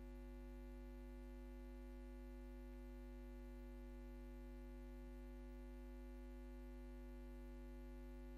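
Near silence apart from a steady low electrical hum with a faint buzz, the kind of mains hum a venue sound system carries when nobody is at the microphone.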